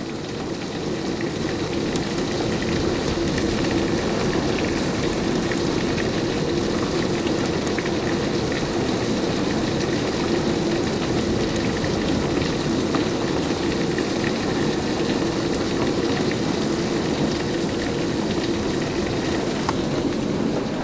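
Heavy rain pouring down in a steady hiss, swelling over the first couple of seconds and then holding steady.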